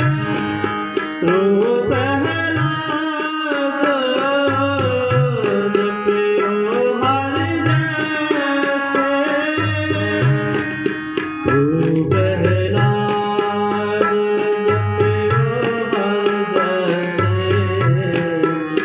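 Instrumental passage of a Punjabi devotional song: a steady tabla rhythm under a sliding, ornamented melody.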